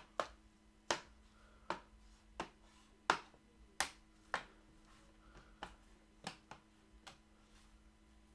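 Plastic bottom panel of a Lenovo IdeaPad S145 laptop pressed back on, its clips snapping into place one by one: about a dozen sharp clicks, roughly one every two-thirds of a second, getting fainter toward the end.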